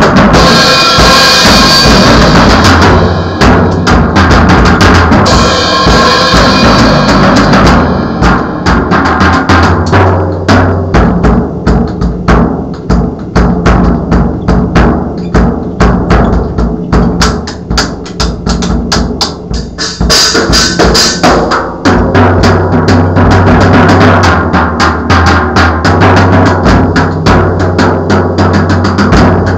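Drum kit played continuously, a dense run of bass drum and snare hits. Cymbals crash near the start, again about five seconds in, and again about two-thirds of the way through.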